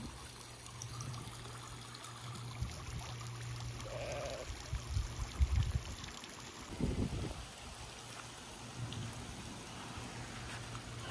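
Floating pond fountain spraying, its jet of water pattering steadily back onto the pond surface. A few short low rumbles come through around the middle.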